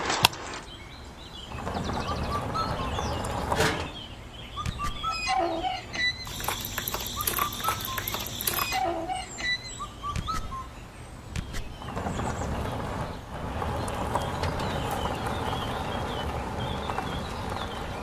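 Small birds chirping in short repeated calls, over stretches of a steady background noise that start and stop abruptly.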